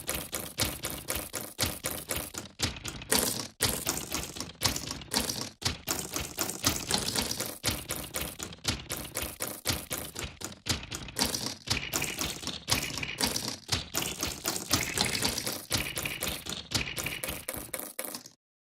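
Poker chips clicking and clacking, sampled and sequenced into a fast, steady rhythmic track. The sound cuts out briefly just before the end.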